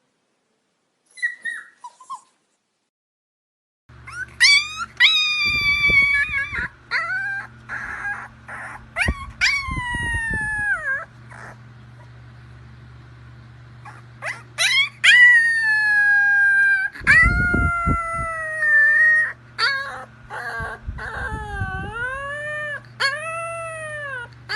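Puppy crying: repeated long, high-pitched whines, most sliding down in pitch, starting about four seconds in after a few faint short squeaks. A steady low hum and a few brief low thumps lie underneath.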